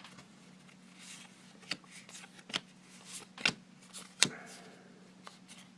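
Baseball trading cards being handled and flipped through one by one: soft rustling with a few sharp card snaps, about one a second.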